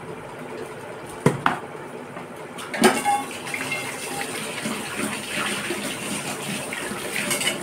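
Water running and splashing, with two light clinks about a second in and a louder clank that rings briefly near three seconds in.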